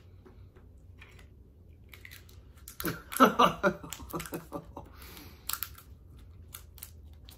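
A man's short wordless vocal reaction about three seconds in, as he reacts in disgust to the taste of a green chili hot sauce. A few faint mouth clicks and lip smacks follow.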